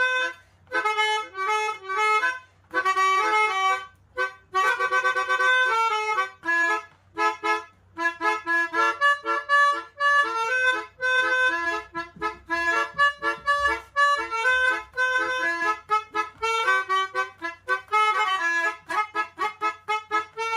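Melodica (pianika) playing a lively melody in short, detached notes, with a quick fluttering run of rapidly repeated notes about five seconds in.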